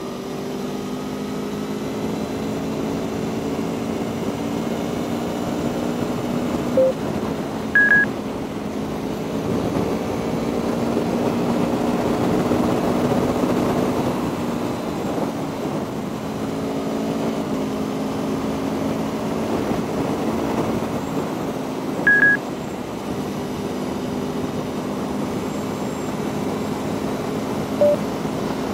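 Aprilia Tuono V4 1100's V4 engine under way on the road, its pitch rising and falling with throttle and gear changes, over steady wind and road noise. A pair of short high electronic beeps sounds about a quarter of the way in and again about three quarters in.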